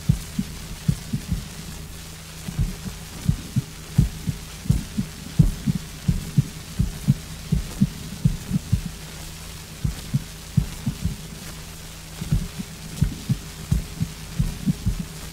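Recorded heart sounds of a patient with extrasystoles, played from a 78 rpm shellac record: low dull thuds in pairs, with premature beats breaking the rhythm and longer pauses after them, over steady record surface hiss. The first sound of each extrasystole is weakened.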